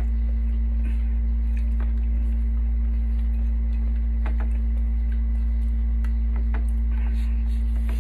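A steady low hum, with scattered soft clicks and taps of fingers and dishes against ceramic plates as food is eaten by hand, a few of them a little sharper about halfway through.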